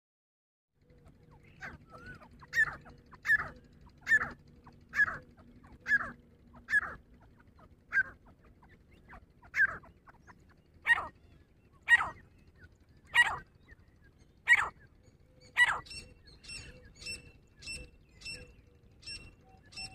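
Grey francolin calling: loud, ringing notes repeated about once a second, spaced a little wider after about ten seconds. From about sixteen seconds a faster run of thinner, higher notes follows, about two a second.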